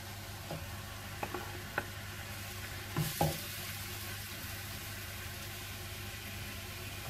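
Chopped onions and fish frying in a pan with a steady sizzle. A wooden spoon knocks and scrapes a few times as the fish is pushed off a plate into the pan and stirred, with two louder knocks about three seconds in.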